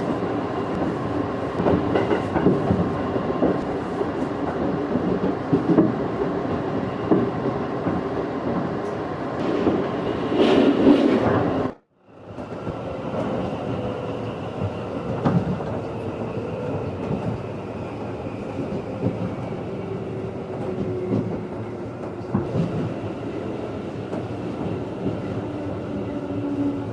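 Running noise of a JR 211 series electric train heard inside the passenger car: a steady rumble of wheels on rail with faint motor tones. The sound swells briefly about ten seconds in, then drops out abruptly for a moment. In the second half the faint tones slowly fall in pitch.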